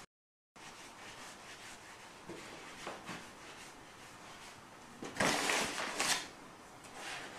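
Hands rolling fusilli dough on a wooden pasta board, a soft steady rubbing. About five seconds in there is a louder rustle lasting about a second.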